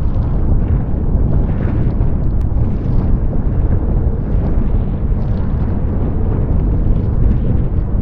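Strong wind buffeting the microphone with water rushing and spraying past a sailing skiff at speed, a loud, steady rumble throughout.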